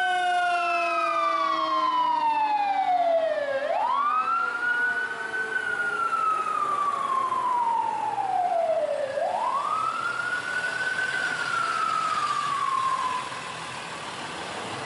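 Fire engine siren wailing: the pitch falls slowly, then sweeps quickly back up, twice, and the siren cuts off about 13 seconds in. A second, fainter siren falls away in the first few seconds.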